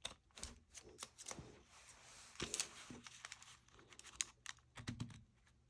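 Scissors snipping in a series of quiet, irregular cuts, trimming the edges of a craft page, with light rustling of paper and fabric.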